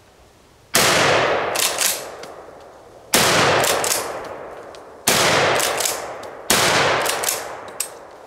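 Four 12-gauge shots from a nickel-plated Rock Island Armory pump-action shotgun, about two seconds apart, each echoing and fading slowly. Between shots come short, sharp clacks as the slide is worked.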